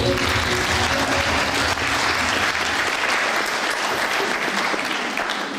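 Audience applauding, with the last of the routine's music fading out in the first second or so; the clapping thins out near the end.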